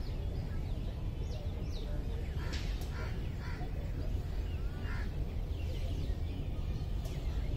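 Birds calling in short, scattered chirps and calls over a steady low rumble.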